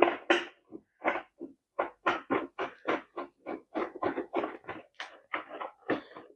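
Rhythmic short creaks, about four a second, as a cat-tree part is twisted by hand onto its threaded bolt.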